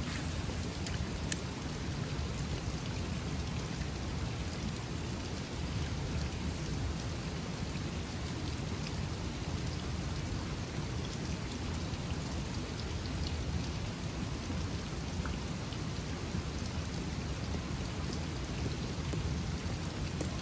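Steady rush of flowing river water, with a few faint ticks about a second in.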